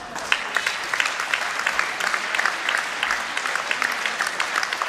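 Crowd applauding: many hands clapping in a steady, dense patter, with a few sharper claps standing out.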